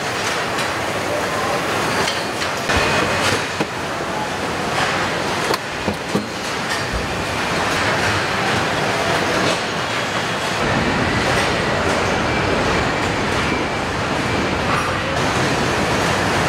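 Car assembly line factory-floor noise: a steady, dense clatter and hum of overhead conveyor carriers and machinery, with a few short metallic knocks. A low rumble grows stronger about ten seconds in.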